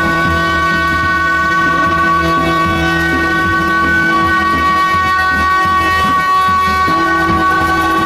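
Tibetan gyaling, the monastic double-reed horns, played together by several monks: loud, held notes that run without a break. A lower note drops out briefly about six seconds in.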